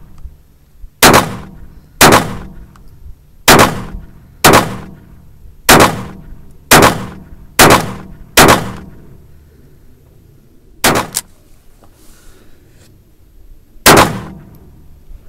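Pistol firing a string of single shots, one about every second for eight shots, each with a short echo. After a pause it fires two shots in quick succession, then one more near the end.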